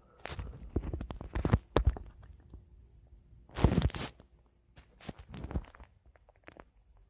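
Human stomach gurgling: irregular bubbly rumbles, a cluster in the first two seconds, a loud one a little past the middle and another about two-thirds in.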